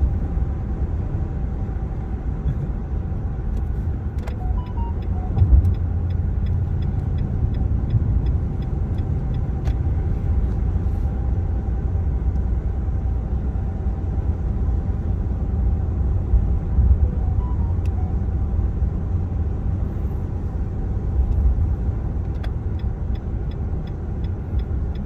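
Steady low road and engine rumble inside a moving car's cabin, with a faint steady hum over it.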